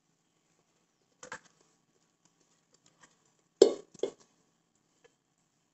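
Stainless-steel mixer-grinder jar knocking against the rim of a steel vessel as ground rice batter is tipped out. There is a soft knock about a second in, then two louder knocks close together past the middle.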